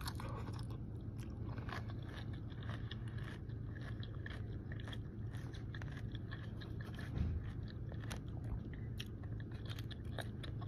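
Biting into a crisp fried tostada shell topped with pico de gallo and lettuce, then chewing it with many small crackling crunches.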